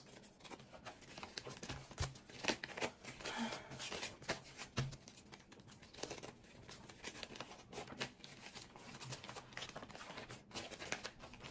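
Paper dollar bills rustling and crinkling as a thick stack is sorted and turned by hand, a quiet run of many short, irregular crackles and flicks.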